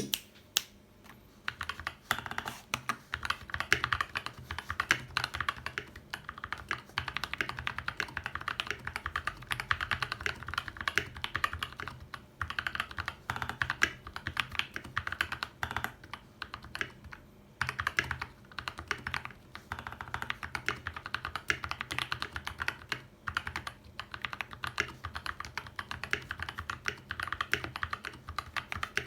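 Fast, continuous typing on a custom FK84T mechanical keyboard fitted with Fantasy Virus switches: a dense stream of key clacks broken by a few short pauses.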